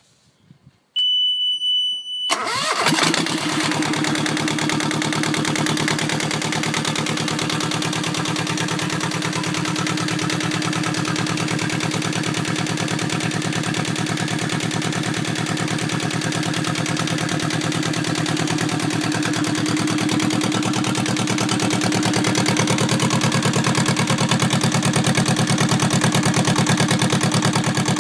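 Yanmar 2GM two-cylinder marine diesel started from its panel: a steady high-pitched alarm buzzer sounds for about a second and a half with the key on, then the engine turns over briefly, catches and runs steadily at idle, getting somewhat louder near the end.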